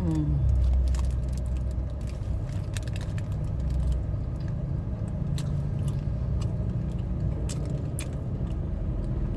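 Someone chewing and biting into a crispy fish burger, with scattered soft crunches and clicks, over a steady low rumble like a car's idling engine.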